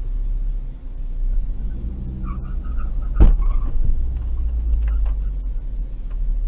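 Low steady rumble of a car driving on the highway, heard from inside the cabin, with one sharp knock a little past three seconds in.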